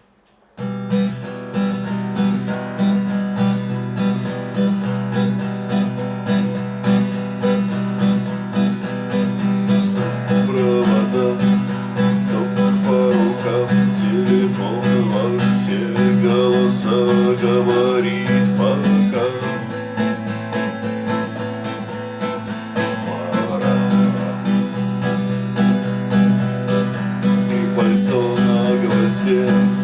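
Acoustic guitar strummed in a steady rhythm, starting about half a second in.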